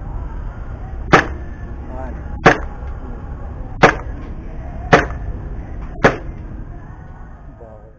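Five shots from a Glock 17 gas blowback airsoft pistol in slow aimed fire, each a sharp crack, a little over a second apart.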